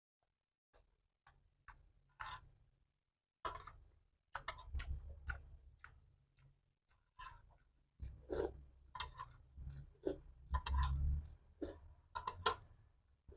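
Close-miked eating sounds: irregular wet mouth clicks and chewing, starting about a second in, with low dull thuds under many of them.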